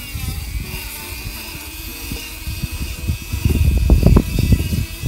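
Motorized equine dental float whining steadily as it grinds down a sharp point on a horse's molar. Heavier low rumbling and knocks come in from about three and a half seconds in.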